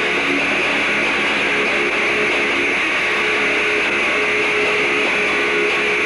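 Electric guitar played loud through a PA during a band's sound check, holding long sustained notes for most of the stretch, with a steady hiss over it.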